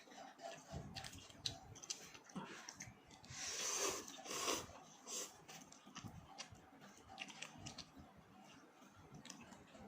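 Close-up eating sounds: chewing with many small wet clicks. A louder, noisy stretch of slurping or crunching comes about three and a half seconds in and lasts about a second.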